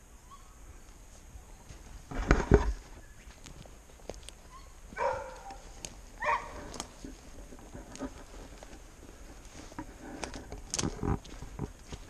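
Steps crunching and rustling through dry branches and forest debris, with a loud crunch about two seconds in and more near the end. Two short animal calls come in the middle.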